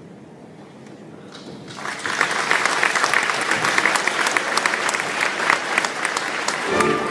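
Audience applauding, starting after a near-quiet pause about two seconds in. The wind band begins playing again near the end.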